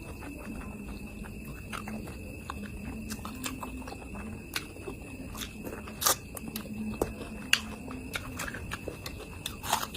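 Close-miked chewing and mouth smacking of a person eating a meat curry, with irregular small wet clicks and a few louder smacks, the loudest about six seconds in.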